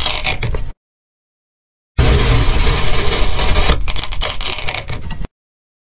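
Kitchen knife blade slicing through packed kinetic sand: a loud, gritty crunching scrape. It comes in two stretches, a short one at the start and a longer one from about two seconds in, each cut off suddenly.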